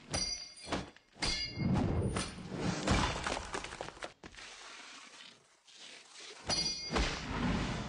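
Intro sound effects: a string of sudden crashes with a glassy, shattering ring, and a low rumbling swell between them. Another crash comes about six and a half seconds in.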